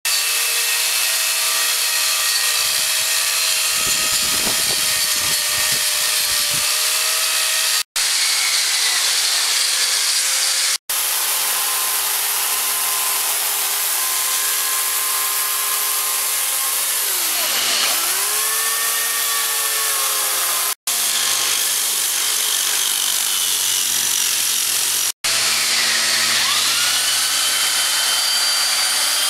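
Electric power tools working wood in several short takes: an angle grinder with a carving disc shaping a log, a chainsaw cutting into a log slab, and a grinder-type disc sander on a slab. A steady motor whine with four brief breaks between takes; the pitch dips and recovers twice, about two-thirds of the way through and near the end.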